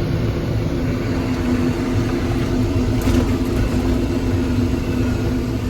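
Heavy farm machinery engine running steadily with a low rumble and a steady hum, and a brief rattle about three seconds in.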